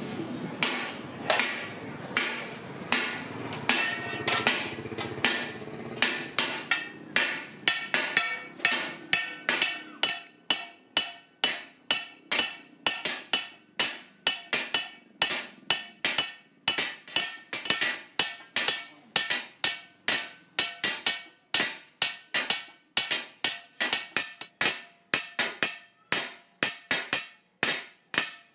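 A hand hammer beats an aluminium degh (cauldron) body in a steady rhythm of about two blows a second, each blow ringing briefly in the metal. The hammering is planishing the aluminium into its dimpled finish.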